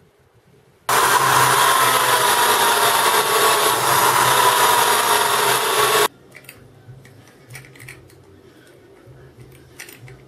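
Small bench drill press running and drilling into an aluminium rail, a loud steady whir for about five seconds that stops suddenly. Faint clicks and knocks of metal parts being handled follow.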